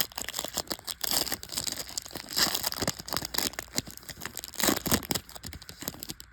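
Trading card pack wrapper being torn open and crinkled: a dense, irregular run of crackles that dies away near the end.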